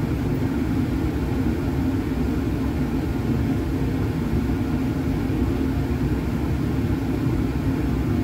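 Steady low rumble of laboratory ventilation airflow, unbroken throughout.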